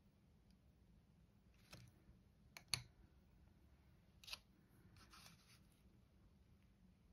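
Near-quiet room with a few light clicks and knocks as painting brushes are swapped: a bamboo brush set down on a wooden brush rest and a plastic-handled brush picked up. The loudest knock comes just before the middle, another follows about a second and a half later, then a brief rustle.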